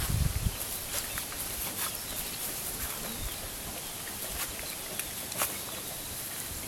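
Faint farmyard ambience from chickens in a pen: a soft steady hiss with a few scattered sharp clicks, the loudest about five and a half seconds in.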